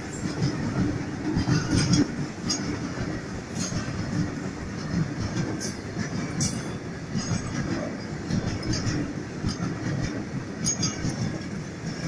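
Indian Railways goods train's covered wagons rolling past at close range: a steady rumble of steel wheels on the rails, with irregular clanks and clicks from the wheels and couplings.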